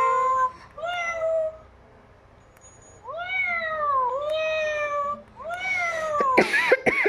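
Electronic toy cat playing recorded meows: two short meows, a pause of about a second, then three longer meows in a row, and a quick run of sharp sweeping cries near the end.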